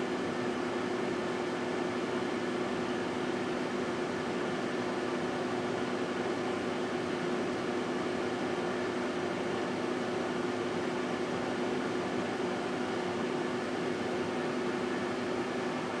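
1978 GE Dual Wave microwave oven running: a steady low hum over an even rushing noise, unchanging throughout.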